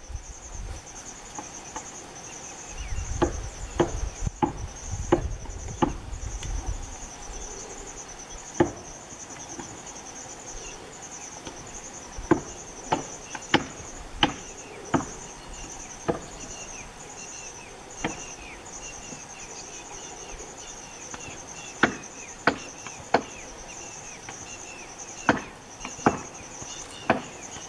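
Insect chorus: a steady, high, pulsing trill. Sharp knocks or clicks come at irregular intervals, with a low rumble for a few seconds near the start.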